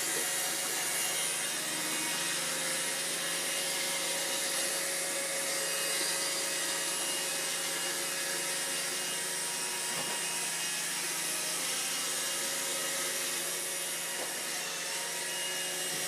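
Robot vacuum cleaner running with a steady whir from its suction fan and brushes, with a couple of faint light knocks.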